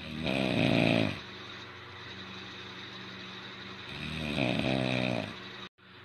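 A sleeping man snoring with his mouth open: two snores of about a second each, about three and a half seconds apart, the first the louder, over a steady low hum.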